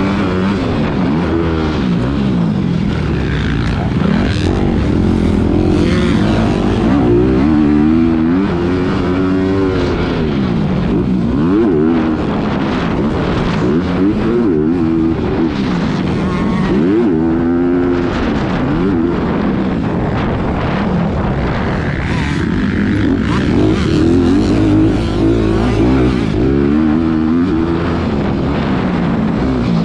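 Motocross bike engine at full race pace, loud, its pitch repeatedly climbing and dropping back as the throttle is opened and closed around the track.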